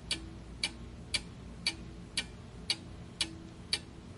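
Clock-ticking sound effect for a quiz countdown timer: even, sharp ticks about twice a second.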